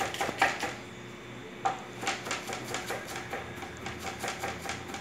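Kitchen knife chopping green vegetables on a wooden cutting board: quick, regular taps of the blade on the board, about four a second, with a short pause about half a second in.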